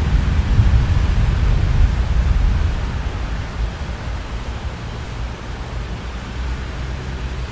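Low rolling thunder rumbling and dying away over the first three seconds, over a steady hiss of rain.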